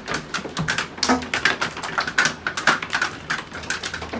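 Large hailstones pelting the house, door glass and ground in a severe hailstorm: a dense, irregular clatter of sharp hits, several a second.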